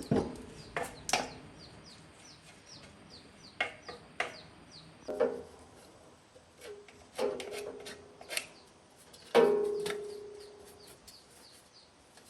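Scattered knocks and clinks of metal parts being handled, several of them ringing on briefly after the strike, with faint bird chirps in the background.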